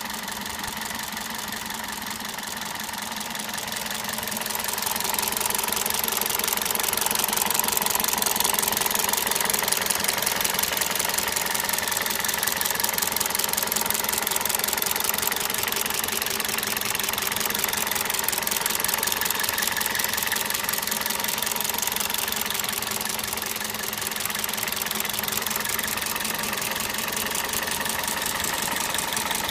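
Toyota 1ZZ-FE 1.8-litre four-cylinder engine idling with a rapid ticking clatter that sounds like valve tap but comes from defective spark plugs. It gets louder about five seconds in and then holds steady.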